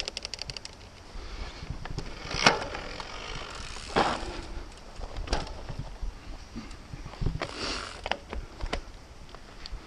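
Mountain bike rolling over rough, stony singletrack: a quick run of ratchet clicks from the coasting freehub at the start, then the bike rattling with sharp knocks as the wheels hit bumps, over a low rumble.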